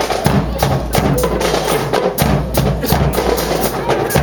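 A marching drum corps playing a fast cadence on snare and bass drums: dense, rapid, sharp strokes over a booming low drum.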